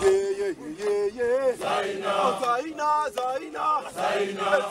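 A crowd of Kilimanjaro porters and guides singing a rhythmic chant together, many male voices in short repeated phrases.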